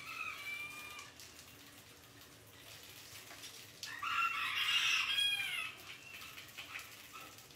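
Two drawn-out animal cries: a short one at the start and a longer, louder one about four seconds in, each holding its pitch and dropping at the end.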